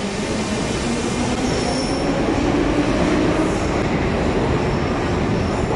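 Metro train running along an underground station platform: a loud rumble of wheels on rail with a faint high wheel squeal, growing louder over the first few seconds and then holding steady.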